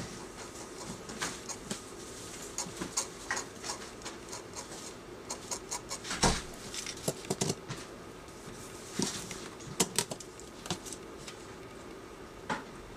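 Craft-knife blade cutting and scraping screentone film on a manga page: irregular small clicks and scratches, with a sharper click about six seconds in.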